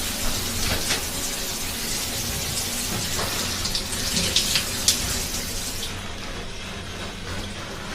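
Water running from a tap into a sink, a steady hiss with a few small knocks and splashes; the flow eases off about six seconds in.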